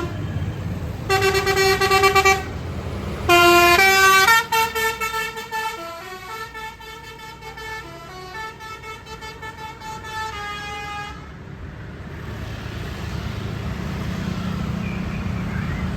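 Multi-tone 'telolet' bus horn playing a tune: one held note, then a quick run of changing notes that ends about eleven seconds in. A low engine and traffic rumble follows.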